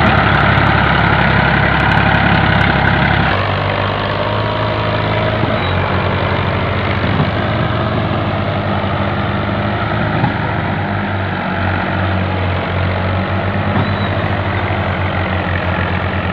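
Fiat 480 tractor's diesel engine running hard while pulling a heavily loaded sugarcane trolley uphill, with the front wheels lifting under the strain. The engine note changes and drops a little about three seconds in, then holds steady.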